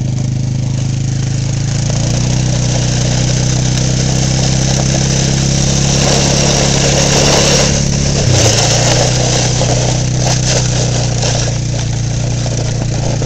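ATV engine running steadily under load while towing, its pitch stepping up about two seconds in and dropping sharply about two-thirds of the way through, with a rushing hiss that swells just before the drop.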